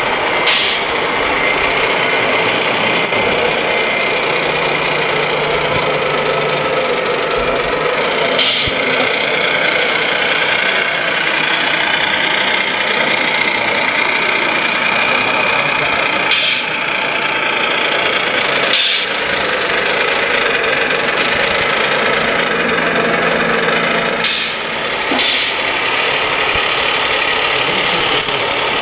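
Simulated diesel truck engine from a radio-controlled model heavy-haul truck, running steadily at idle to low speed with a diesel rattle. There are a few brief breaks in the sound.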